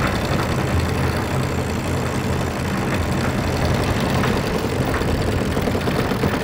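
A motor aboard a sailing yacht running with a steady, even low hum, with a few faint ticks a few seconds in.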